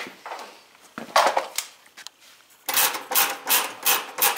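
Metal clicking and rattling from a kerosene heater's controls and wire guard as a hand works them to light it, a few knocks about a second in, then a quick run of clicks about four a second.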